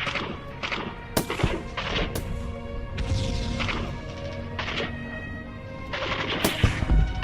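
Background music with held tones and sharp percussive hits.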